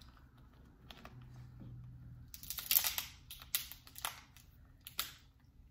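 Cooked king crab leg shell being cracked and broken open: a quick run of sharp cracks and crunches starting a little over two seconds in, loudest at the first few snaps.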